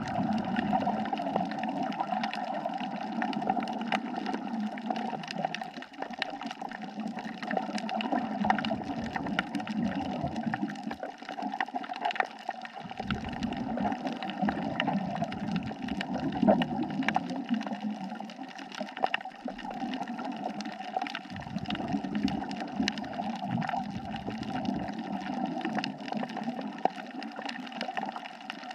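Underwater sound of a scuba diver's breathing: the bubbles of each exhale rush out in long surges every several seconds, over a steady fine crackle of clicks.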